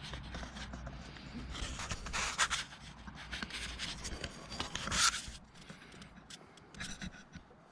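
Handling noise: irregular rubbing and scraping against the camera's microphone as it is moved and turned over, with a louder scrape about five seconds in.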